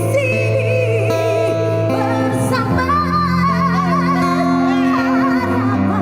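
A woman singing a song with a wavering, vibrato-laden voice, accompanied by acoustic guitar and steady low held notes.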